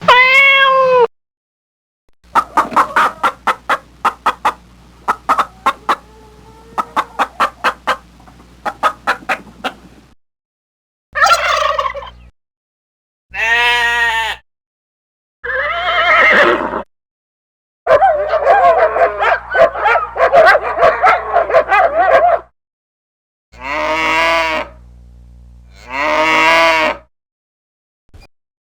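A string of separate animal sound effects. It opens with a short call, then about eight seconds of rapid, repeated calls, then six separate pitched calls lasting one to four seconds each, with a gap of silence between each clip.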